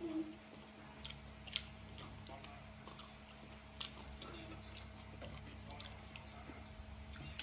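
A person chewing a mouthful of spaghetti, with a few light clicks of a fork and spoon against the plate.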